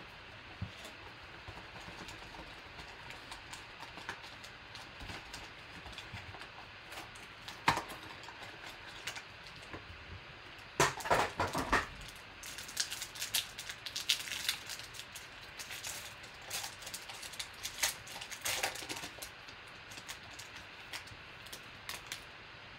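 A trading-card box and pack being handled: a sharp click about eight seconds in, then the pack's wrapper torn open with loud crinkling from about eleven seconds, followed by lighter crinkles and rustles as the cards are slid out.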